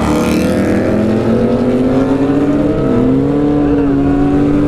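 Motorcycle engine pulling steadily at road speed from the rider's seat, with wind rush. Its pitch holds steady, dips briefly and comes back up about three seconds in.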